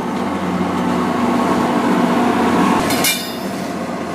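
MBTA commuter train with Hyundai Rotem bilevel coaches rolling past, a steady rumble with a hum in it, and a sharp metallic clank about three seconds in.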